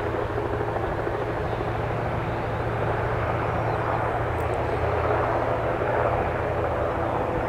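RAF Westland Sea King helicopter flying low overhead, its rotor and turbine engines making a steady, even noise.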